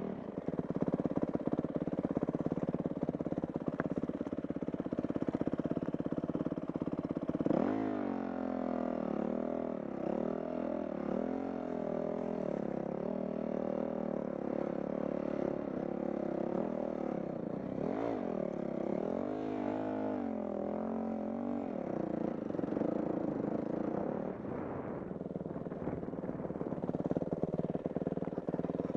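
Dirt bike engine running under way, its pitch rising and falling repeatedly with the throttle through the middle of the stretch, steadier before and after.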